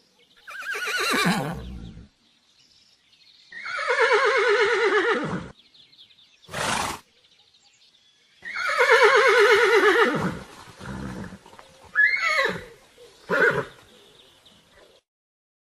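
Horse neighing: three long, quavering whinnies, the first falling in pitch, with shorter calls and a brief noisy burst between and after them.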